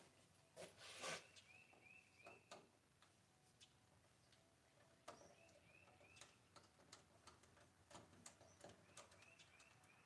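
Faint clicks and knocks from handling a door deadbolt and a screwdriver. A bird outside repeats a short phrase of three or four chirps three times.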